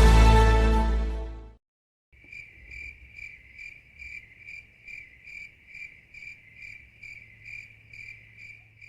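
Background music ends about a second and a half in. Then comes an evenly pulsed, cricket-like chirping, about two and a half chirps a second, over a faint low hum.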